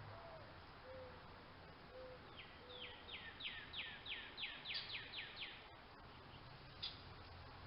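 Wild birds calling: a soft, low hooting call of four notes, the first rising then falling, followed by a songbird singing a quick run of about a dozen down-slurred whistles, with a couple of short chirps near the end.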